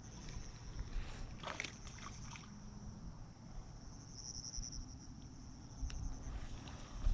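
Steady high-pitched insect chirring that swells for a moment partway through, over a low rumble, with a few faint clicks about a second and a half in.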